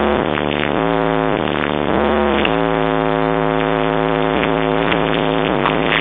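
Electronic music played loud through a car's stereo system, with long held tones that slide in pitch a few times over a constant heavy bass.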